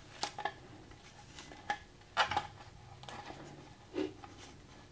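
Faint handling sounds of self-adhesive foam gasket tape being peeled from its paper backing and pressed onto a 3D-printed plastic mold part: a few short, scattered crinkles and taps.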